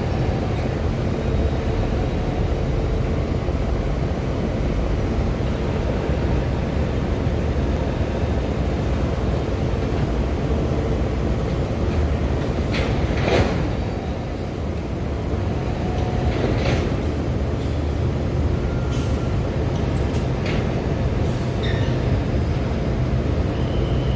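Steady low rumble of ship engines running. A few sharp knocks come in the second half, the loudest about 13 seconds in.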